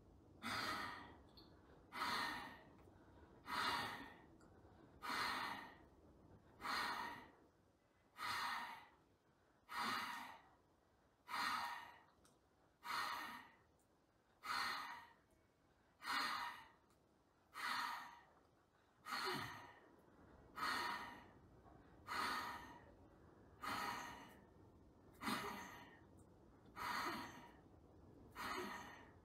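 Bhastrika pranayama (bellows breath): forceful rhythmic breaths through the nose, about one every second and a half. Each breath is a sharp rush of air that quickly tails off.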